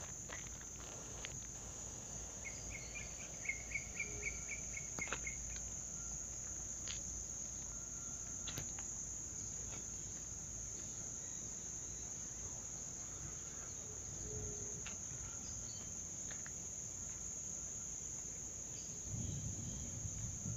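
Insects trilling in one steady, high-pitched note, with a bird giving a quick run of about a dozen short, repeated chirps a few seconds in.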